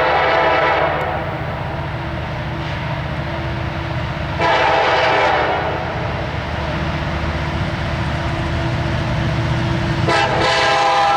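Norfolk Southern diesel freight locomotive's air horn sounding in three blasts, about four and a half seconds apart, the last one starting near the end. The locomotives' diesel engines rumble steadily underneath as the train approaches.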